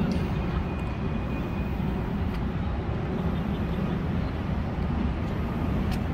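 Steady city traffic noise: a low, even rumble of passing vehicles.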